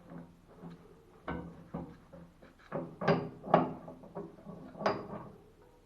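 A run of sharp knocks and clunks, a few with a short metallic ring, from tools and fittings being handled while a threaded valve joint is refitted.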